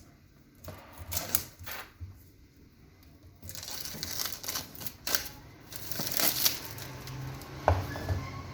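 Phone box and its packaging being handled: a few taps and clicks, then rustling and crinkling from about three and a half seconds in, with a sharp click near the end.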